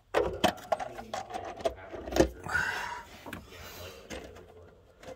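Valve cover being lowered onto the cylinder head and worked into place: a string of irregular clicks, knocks and light rattles, the loudest knock about two seconds in.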